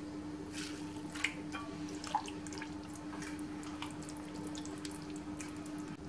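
Water dripping from gelatin sheets squeezed by hand, then a silicone spatula stirring a hot, runny custard in a saucepan with soft scrapes and faint light clicks. A steady hum runs underneath.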